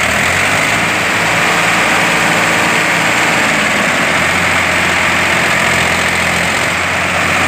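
Two tractor diesel engines, a Sonalika 745 and a Farmtrac 60, running loud and steady under load as they pull against each other on a chain in a tug-of-war. The engine note changes about four seconds in.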